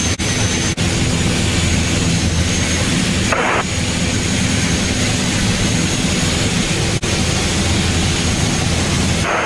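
Piper single-engine light aircraft's piston engine and propeller running steadily at power, heard from inside the cockpit as the plane climbs out after takeoff. The sound cuts out for an instant twice near the start and once later, with a short swish midway.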